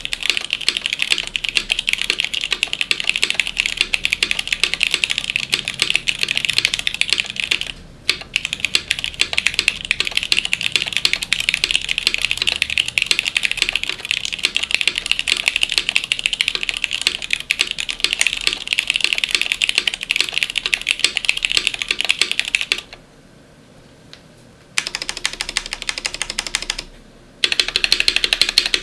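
Fast, continuous typing on a mechanical keyboard with unlubricated Cherry MX Black linear switches, a carbon fiber plate, a 3D-printed PETG case and GMK Alter ABS keycaps: rapid keystrokes with a brief break about eight seconds in and a pause of about two seconds near the end before typing resumes.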